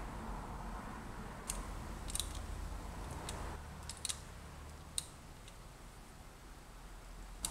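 A handful of light, sharp clicks spaced irregularly a second or so apart, from a points-type distributor being turned and adjusted by hand while the static ignition timing is set.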